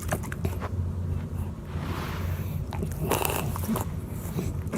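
A dog chewing and crunching Cheetos, with irregular crisp crunches over a steady low hum.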